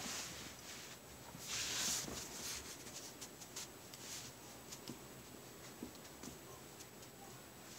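Puppies scuffling and wrestling over a rope toy on a woven mat: faint scratchy rustling and small clicks of paws and toy, with a louder rustle about a second and a half in.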